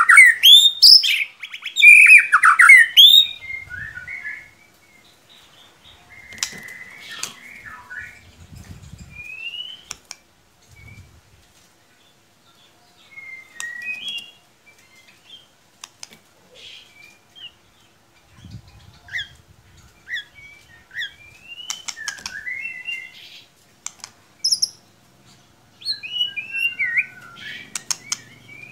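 White-rumped shama (murai batu) song: a loud burst of rapid, varied whistled phrases in the first few seconds, then scattered short chirps and calls with sharp clicks between them.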